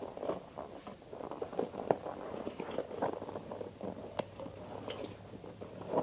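Solid rubber tube being pushed by hand into a bicycle tyre on its rim: irregular rubbing and handling noise with scattered light knocks and clicks.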